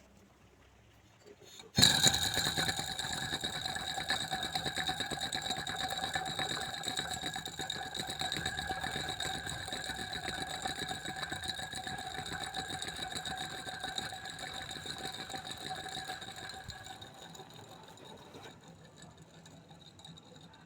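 VW Beetle alternator running with a rattling whir and a steady high whine, starting abruptly about two seconds in and fading away over the last few seconds. The growl comes from a worn support bearing.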